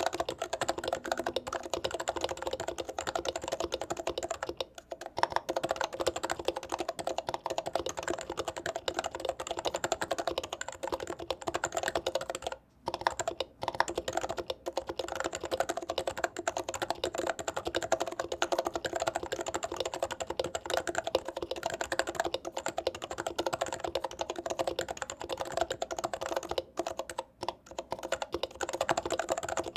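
Fast, continuous typing on a stock Norbauer Seneca keyboard with medium-weight domes: a dense stream of key strokes, broken by brief pauses about five seconds in, twice around thirteen seconds, and near the end.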